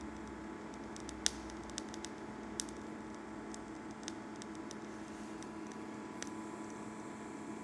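Homemade 1000 W induction heater running with its cooling fan and water pump: a steady hum made of a few fixed tones. A handful of short sharp clicks are scattered through it, the loudest about a second in.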